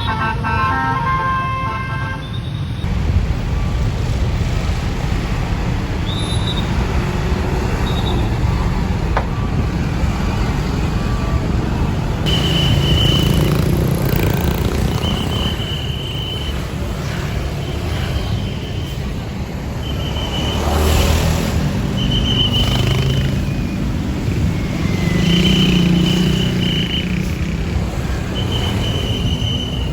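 Multi-tone bus horn (basuri/telolet) playing a melody that cuts off about two seconds in, then roadside traffic: heavy engines of passing vehicles rising and falling. From the middle on, short high beeps repeat every second or two.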